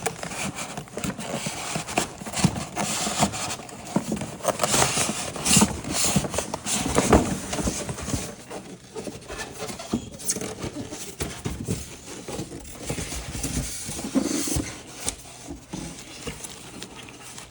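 Handling noise from unpacking an egg incubator from its styrofoam box: irregular knocks, scrapes and rustles as the box and its packed parts are moved and opened.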